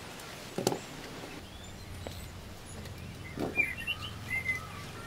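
Two short knocks of jackfruit seeds being handled in a woven basket, one about half a second in and one about three and a half seconds in. A bird chirps several short calls near the end.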